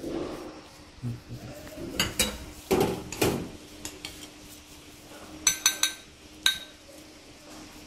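Metal spoon knocking and scraping against a ceramic bowl while stirring a thick creamy dessert mixture: a few dull knocks about two to three seconds in, then a quick run of sharp ringing clinks and one more a moment later.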